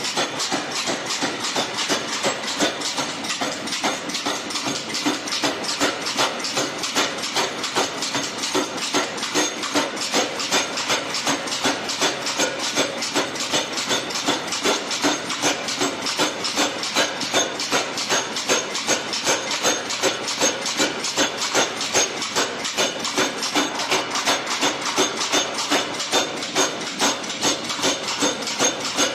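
Power hammer striking a glowing Damascus steel billet in a steady, even run of blows, about three a second, as the billet is forged out.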